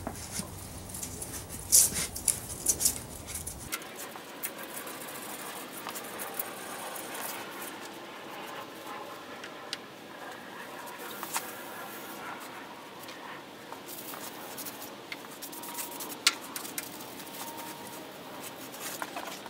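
Rubbing and wiping over a steel crosscut saw blade on a steel workbench, a steady scratchy friction sound, with a few sharp metallic clicks in the first few seconds.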